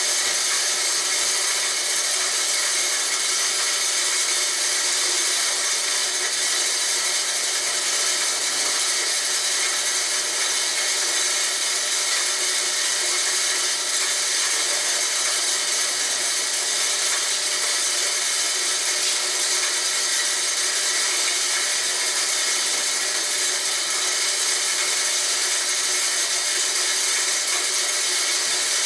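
Homemade electric corn grinder built from a water pump, running steadily as it grinds corn, a constant high-pitched whirring grind with no change in pace.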